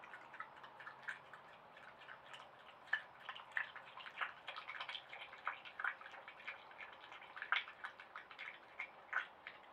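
Virginia opossum chewing a tomato: wet, irregular clicking and smacking of its jaws, several smacks a second, with a couple of louder ones.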